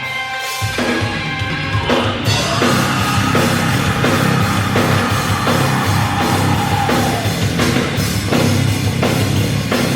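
Rock band playing heavy rock music with a drum kit, the full band coming in about two seconds in. A long held note slides down about seven seconds in.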